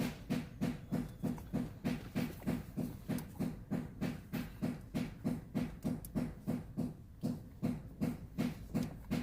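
A steady mechanical rhythm of low pulses, about three to four beats a second, running on without a break.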